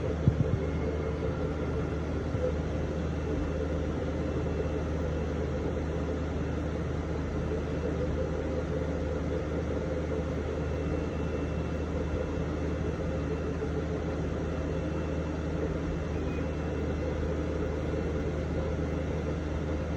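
3D printer running: a steady hum of its cooling fans and stepper motors, with a few sharp clicks right at the start.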